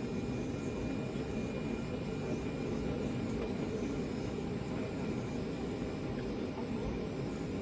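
Steady low cabin hum inside a Boeing 757 with its jet engines running.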